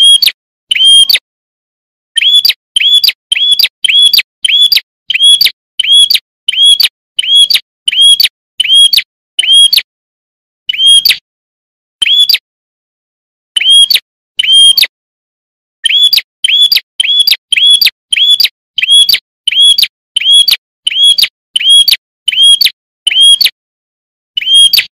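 Prinia (prenjak) calling: one short, sharp, high chirp repeated over and over, about one and a half a second, in runs broken by brief pauses.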